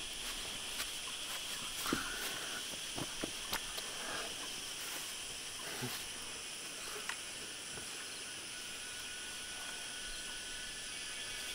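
A steady, high-pitched chorus of insects, with a few soft rustles and light taps in the first few seconds.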